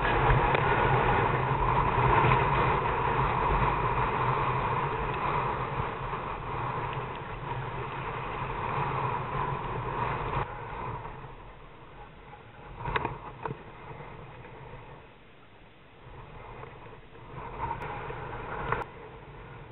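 Strong wind (20+ knots) buffeting the microphone over choppy water, loud and steady. About halfway it drops to quieter wind and water around a kayak, with a couple of sharp knocks.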